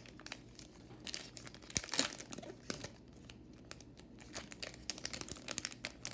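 Foil wrapper of a Topps silver baseball card pack crinkling and tearing as it is torn open by hand: a dense run of sharp crackles, loudest about two seconds in.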